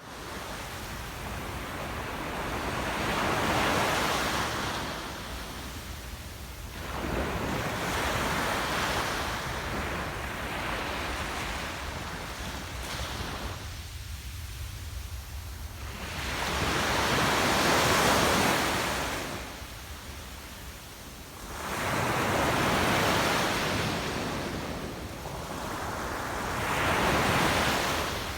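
Sea waves breaking on a beach: about five waves crash in turn, each swelling up and washing back out, with a brief lull between them about halfway through.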